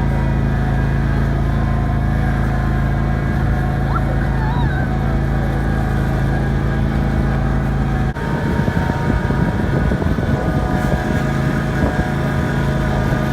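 Lawn mower engine running steadily, towing a sled through snow. About eight seconds in, the sound breaks off for an instant and comes back rougher and more uneven.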